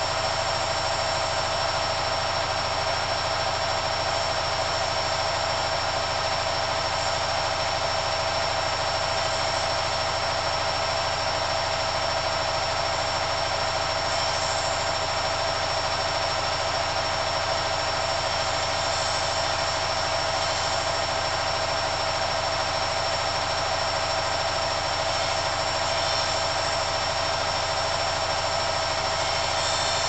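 Hoover CA232 front-loading washing machine in its final spin, the drum turning at a steady speed with a steady high-pitched motor whine over the running noise.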